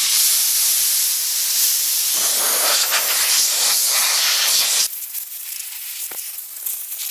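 Compressed-air blow gun blasting air over a small engine to clear grass and dirt, a loud steady hiss that cuts off sharply about five seconds in, followed by a fainter hiss.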